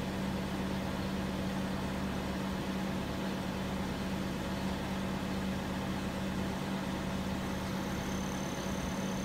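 Telehandler engine idling steadily, an even low hum with no change in speed.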